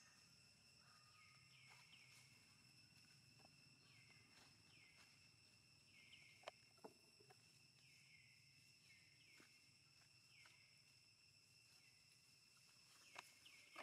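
Near silence outdoors: a faint, steady, high insect drone with short falling chirps repeating every second or so. A few light clicks come about halfway through and near the end.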